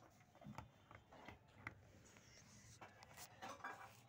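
Near silence, with a few faint scattered clicks and rustles.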